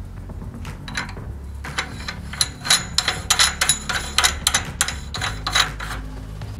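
Threaded aluminium ring nut being screwed onto a hand-cranked meat grinder's head over the perforated plate: a run of sharp metallic clicks and scrapes, about two or three a second, starting about two seconds in and stopping shortly before the end.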